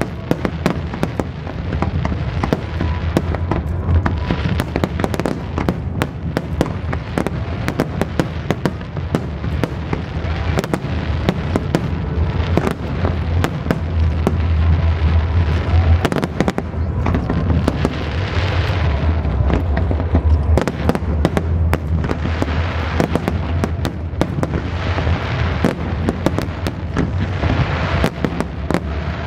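Aerial fireworks bursting in a dense, continuous barrage: rapid crackling pops over a constant low booming.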